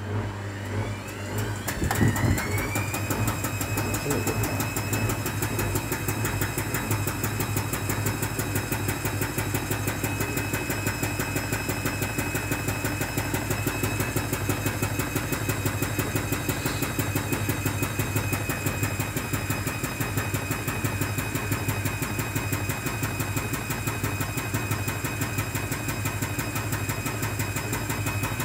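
Hotpoint WMA 30 washing machine on a spin: the motor whine rises over the first couple of seconds as the drum speeds up, then holds at one steady pitch over a fast, even pulsing from the turning drum.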